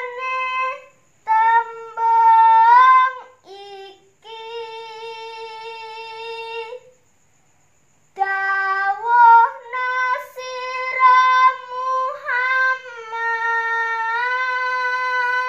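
A woman's solo voice singing a Javanese macapat verse (tembang) unaccompanied. She holds long, high notes with slow ornamental turns between them, breaking off for short breaths and for a pause of about a second near the middle.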